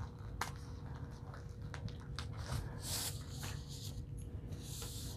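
Water-soluble embroidery stabilizer film being handled and smoothed over a terry towel while it is pinned: soft crinkly rustles and faint ticks, with one sharp click about half a second in. A faint steady hum runs underneath.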